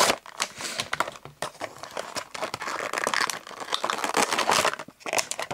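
Stiff clear plastic toy packaging crinkling and crackling as it is handled, with many irregular sharp clicks.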